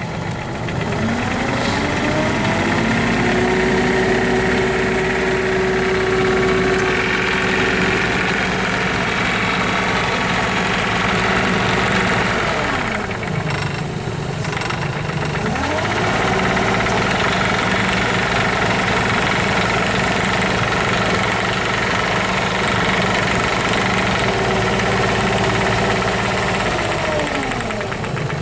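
Kubota U-30 mini excavator's diesel engine running, revving up about two seconds in and holding steady with a whine over it. It drops back around twelve seconds in, revs up again about four seconds later, and drops back near the end.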